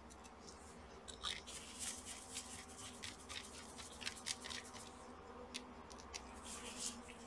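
A small precision screwdriver clicking and scraping on the screws and metal parts of an open laptop chassis: a run of light, irregular ticks as the screws go back in.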